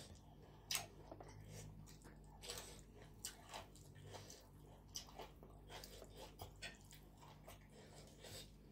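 A person chewing a mouthful of food close to the microphone: irregular wet smacks and soft clicks of lips and teeth, the sharpest one about a second in.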